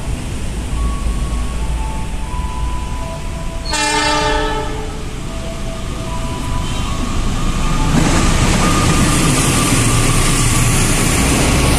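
KAI CC206 diesel-electric locomotive sounding one horn blast about four seconds in as it approaches, then passing close by with its stainless-steel coaches, engine and wheels loud from about eight seconds in.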